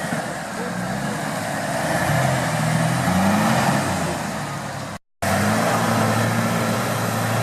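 Toyota Land Cruiser engine under way off-road, its pitch rising as it revs about two to three seconds in. The sound breaks off for an instant about five seconds in, then the engine runs on at a steady note.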